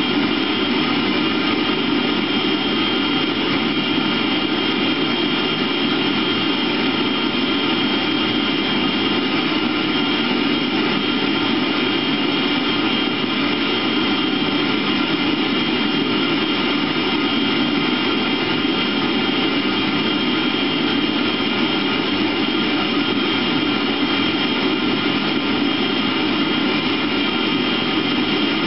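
Eberspächer Hydronic D5WZ diesel water heater running during a bench test: its combustion-air blower and burner make a steady drone, with a thin high whine on top.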